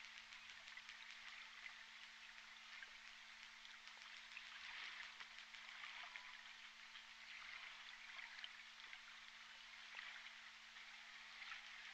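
Underwater hydrophone recording of J pod orcas (Southern Resident killer whales): a faint, dense crackle of echolocation clicks that thickens in spells, with a brief faint call trace about six seconds in, over a steady low hum.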